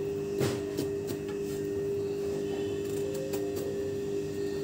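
A steady humming tone throughout, with a few faint clicks and taps from a small kitchen knife slitting a large eggplant on a steel plate.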